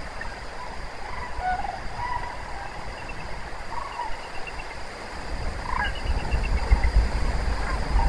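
A flock of sandhill cranes calling in flight: scattered rolling calls from several birds, one with a clear rattle about six seconds in. A low rumble sits underneath and grows louder in the second half.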